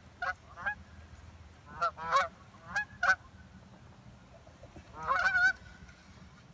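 Geese flying by, honking: single honks, mostly in pairs, then a longer run of calls about five seconds in.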